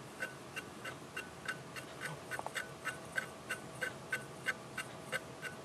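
Metal tool dragged over the scored surface of a hard-drive platter that a head crash has left as rough as sandpaper, giving faint, light ticks about three times a second.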